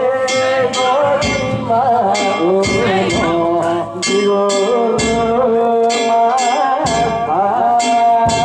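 Japanese festival float music (hayashi): metal gongs struck about twice a second over drum beats, with a held, wavering melody line running beneath.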